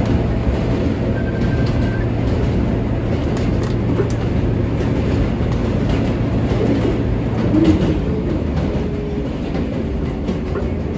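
R143 subway train running along the track, heard from inside the car: a steady rumble with scattered clicks from the wheels on the rails. A low steady hum drops away about three-quarters of the way through.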